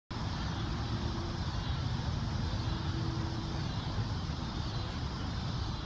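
Steady low rumble of distant traffic, with faint wind noise.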